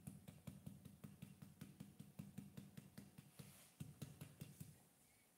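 Faint, rapid taps of a damp sponge dabbing paint onto a ceramic pot, several a second, fading out near the end.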